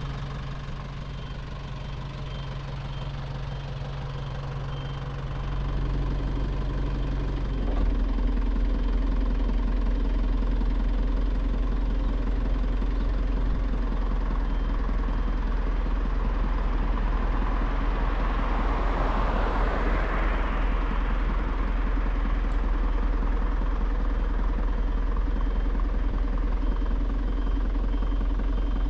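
2001 Nissan Cabstar truck engine running steadily, getting louder and deeper about six and eight seconds in. A rushing sound swells and fades around twenty seconds in.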